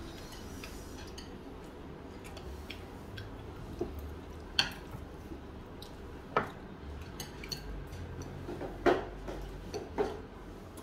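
Eating utensils clinking against plates and dishes during a meal: about six separate sharp clicks, scattered and uneven, the loudest about nine seconds in.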